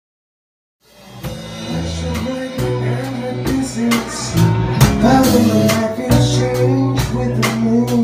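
Silence, then about a second in a live band fades in: acoustic guitar, electric bass, keyboard and drum kit playing a song with steady drum hits.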